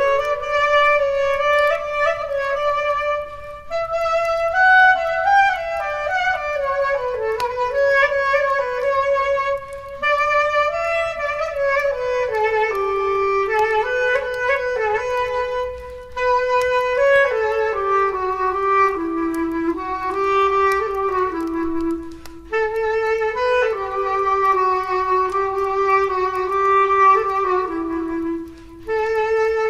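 Solo clarinet playing a slow melody in phrases, with short breaks for breath about every six seconds.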